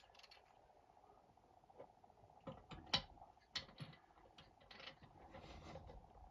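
Faint metallic clicks and scrapes of a socket wrench turning out a diesel heater's glow plug that has just broken loose. Three sharp clicks come about halfway through, then softer scraping.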